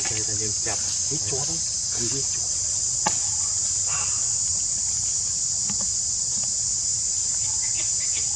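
Steady high-pitched drone of an insect chorus, unbroken throughout. A few short vocal sounds in the first two seconds and a single sharp click about three seconds in.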